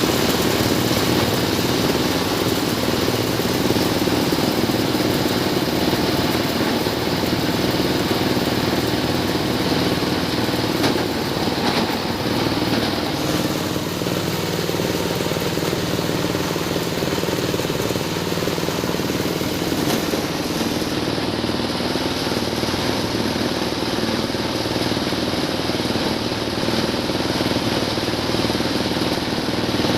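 G-50 shredder-grinder running steadily, a loud continuous engine-like machine noise, while grinding coconut husk into cocopeat.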